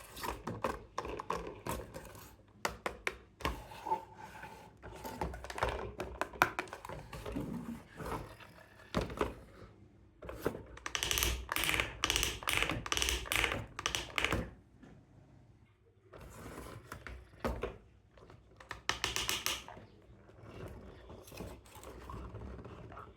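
Hands handling a toy excavator and its packaging: irregular clicks, taps and knocks, with two longer bursts of rapid clicking, the first lasting about four seconds near the middle and a shorter one later.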